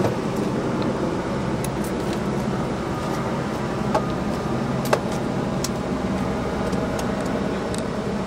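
Steady hum of idling vehicle engines, with two sharp knocks about four and five seconds in.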